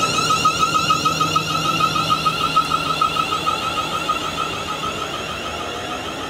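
A Siemens Class 350 Desiro electric multiple unit pulls away, its traction equipment giving a steady high whine that pulses rapidly. The whine fades as the train draws off.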